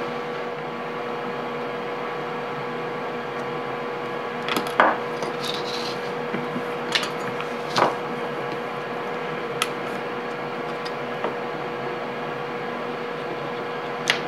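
A rubber-jacketed power cord and hand tools being handled on a workbench while the cord's outer jacket is stripped off its conductors: rubbing, with a few short clicks and taps. Under it is a steady background hum.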